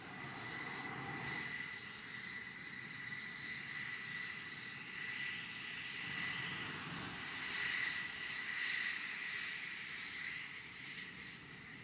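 F-16 fighter jets rolling along a runway, their jet engines giving a steady high whine over a rushing noise that swells as the jets pass, about seven to nine seconds in.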